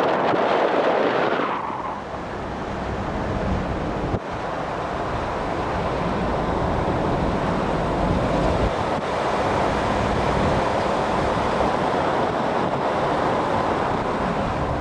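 Wind rushing over the microphone of a camera filming from a moving Hummer, with the low rumble of the road and engine underneath. The wind noise is strongest in the first couple of seconds, then settles to a steady rush.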